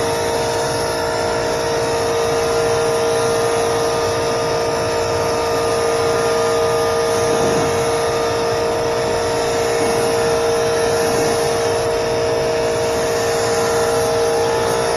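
Small air compressor running steadily, a constant motor drone with a steady hum, while it supplies air for spraying paint.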